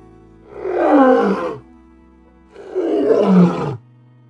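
Lion roaring twice, each roar about a second long and dropping in pitch as it ends, over soft background music.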